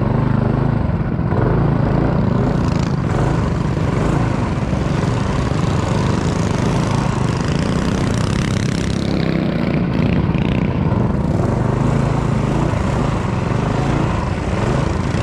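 Coleman minibike's small single-cylinder engine running steadily at speed.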